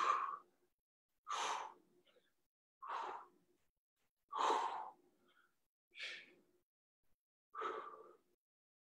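A person breathing hard through dumbbell deadlift reps: six short, forceful breaths about one and a half seconds apart, keeping time with the lifts.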